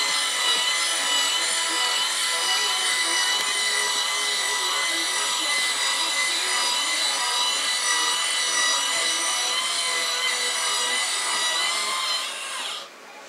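An RC tipper truck's small electric tipping motor whines steadily and high while the raised tipper body is lowered. Near the end its pitch falls and it stops.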